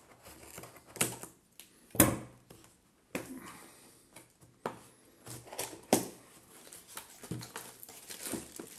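Scissors snipping and scraping through packing tape on a cardboard box, then the cardboard flaps being pried and pulled open: a run of sharp clicks and knocks with scraping between them, the loudest about two seconds in.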